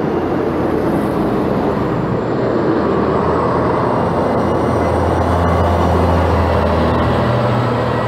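Diesel engine of a Dennis Condor double-decker bus running as the bus drives up and passes close by, its low engine note growing louder in the second half.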